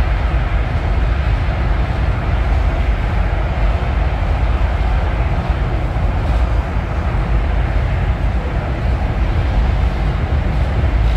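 Steady low rumble of the funicular train car running through its tunnel, heard inside the cabin.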